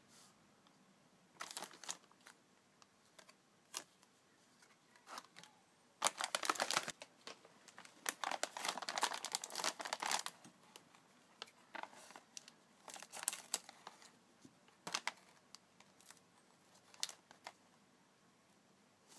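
Crinkling and crackling of a thin foil-film card packet and the chip bag it is fixed to, as the packet is handled and torn open by hand. The noise comes in irregular bursts, densest and loudest from about six to ten seconds in.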